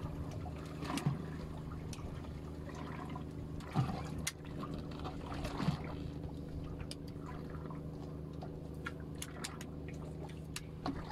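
Water lapping and sloshing against the hull of a small fishing boat, over a steady low hum, with a few light clicks and taps.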